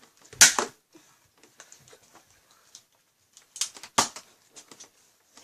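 Sharp clicks and knocks, hard plastic-like handling sounds: a loud cluster about half a second in, scattered faint ticks, then another cluster with one strong knock about four seconds in.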